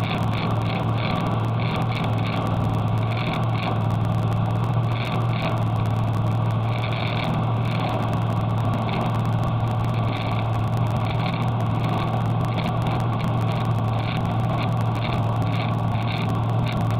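Cessna 310's twin piston engines and propellers droning steadily in cruise, heard inside the cabin, with a higher hiss that flutters in quick pulses over the low drone.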